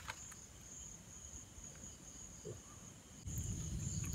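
Crickets trilling steadily at night, one high unbroken tone. A few faint clicks, and a low rumble joins about three seconds in.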